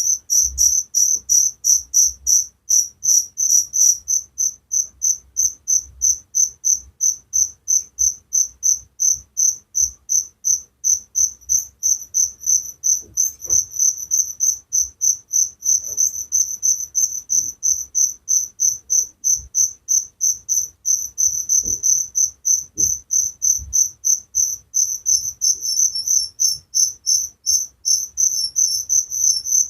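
Cricket chirping steadily, a high-pitched call in an even rhythm of several short pulses a second.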